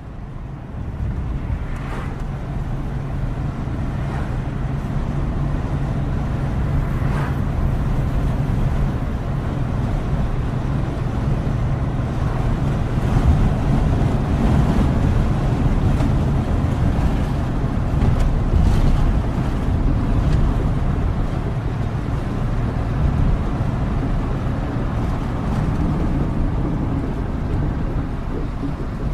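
Steady rain heard from inside a moving vehicle, over a constant low rumble of road and engine noise; it fades in over the first second.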